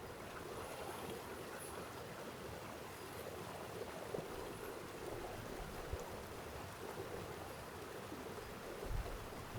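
Steady babbling of a small forest stream, with a few faint ticks now and then.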